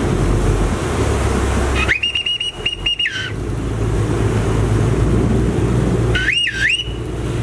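Crew member's whistle blown in two signals to the river boat's driver for docking: first a held blast with a couple of quick breaks about two seconds in, then a shorter blast near the end that dips and rises in pitch. The boat's engine and churning water run steadily underneath.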